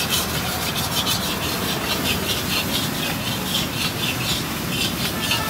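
A metal ladle scraping and scooping against a wok in quick repeated strokes, a few a second, as egg is scrambled over high heat. A steady hiss runs underneath.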